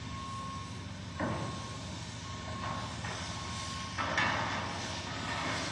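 Heavy diesel machinery running steadily on a work site, with a steady high tone sounding on and off. A short burst of noise about a second in and a louder hiss from about four seconds in.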